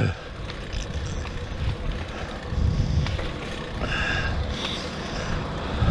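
Bicycle tyres rolling over cracked asphalt at speed, with wind rumbling on the microphone. A short higher tone sounds about four seconds in.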